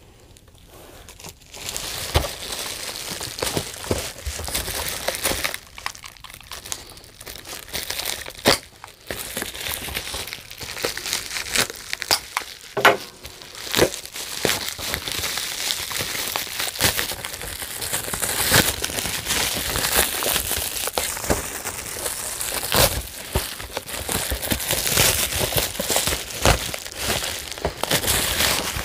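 Plastic packaging crinkling and rustling while a boxed vinyl figure is worked out of its wrapping, with frequent sharp crackles and a few knocks against the box.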